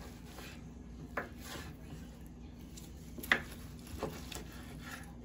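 Chef's knife slicing through a tomahawk ribeye steak on a wooden cutting board, the blade knocking the board a few times in short sharp taps, the loudest about three seconds in.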